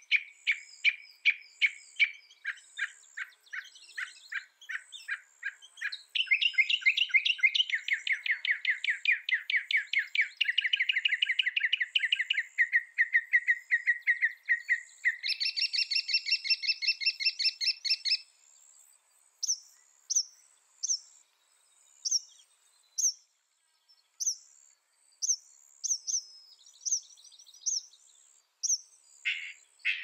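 Northern mockingbird singing: it repeats one note many times in quick succession, then switches to a faster run of a different note and another new phrase every few seconds. Partway through it drops to single sharp down-slurred chirps spaced about a second apart, before a new rapid phrase starts near the end.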